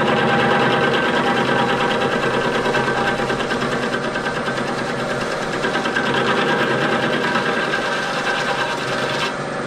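Milling machine spindle turning a boring head that takes a finishing pass, cutting steel plate to open a hole out to about 25 mm. A steady motor hum with a fast, even pulsing on top; the high cutting hiss drops away near the end.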